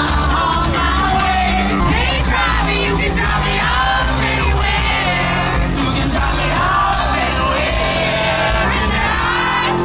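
A live band playing a song with a lead singer, while people close by in the crowd sing along and yell.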